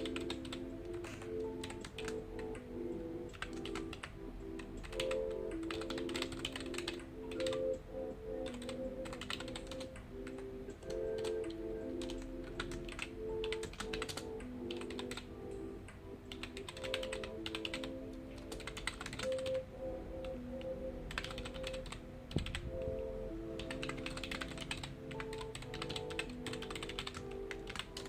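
Computer keyboard typing in bursts of quick keystrokes with short pauses between them, over soft background music with long held notes.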